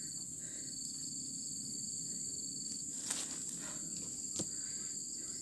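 Steady high-pitched insect drone, two shrill tones held together, one of them dropping out about halfway through, with a couple of faint rustling clicks a little past the middle.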